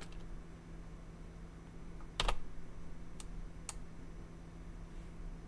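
Three isolated sharp clicks of computer keyboard and mouse use, the loudest about two seconds in, over a steady low electrical hum.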